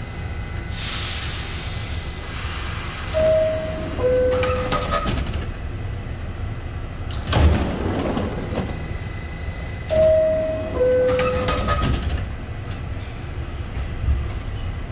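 New York City subway car's two-note falling door chime sounds twice, about seven seconds apart, over the steady rumble of the train. It is the warning that the doors are about to close. There is a burst of hiss near the start and a loud thud about halfway through.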